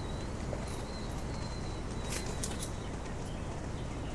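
Wind buffeting the microphone, a steady low rumble. A faint thin high tone runs through the first half, and a few sharp clicks come a little over two seconds in.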